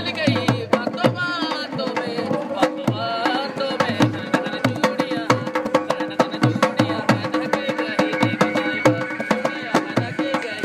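Hand-played dholak barrel drum in a fast, steady rhythm, with a melody over it that wavers in the first couple of seconds and then settles into held notes: live Rajasthani folk music accompanying a puppet dance.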